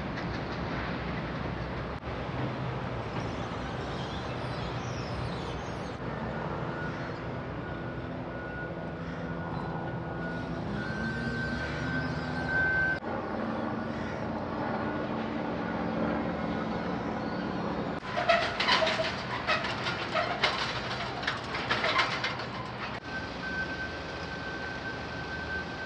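Electric train running, heard as a steady rumble with low motor tones that shift in pitch and a thin high whine. About three quarters of the way through come a few seconds of sharper, irregular clatter.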